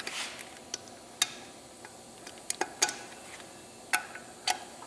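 Hand tools working on metal transmission parts: a few irregular sharp clicks and ticks, with a quick cluster about two and a half seconds in.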